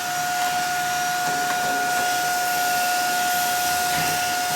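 Vacuum cleaner running steadily, its motor giving a constant high whine over a rushing hiss.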